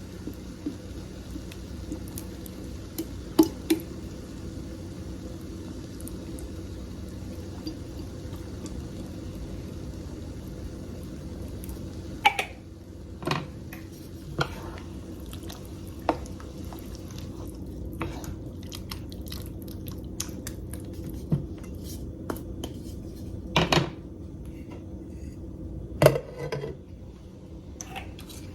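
A spoon knocking and clinking against a cooking pot of chili, about ten sharp knocks scattered through, over a steady low hum.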